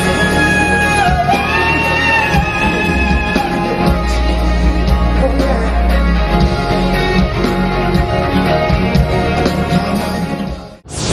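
Pop song with a singer holding long, sliding notes over a full backing band; the music cuts out abruptly near the end.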